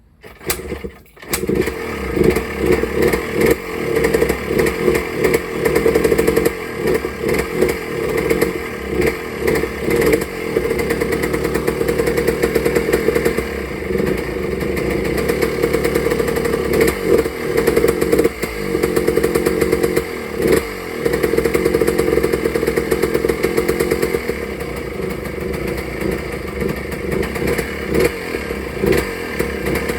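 Yamaha Blaster's single-cylinder two-stroke engine firing up about a second in on a freshly rebuilt top end, then running with the revs rising and falling unevenly.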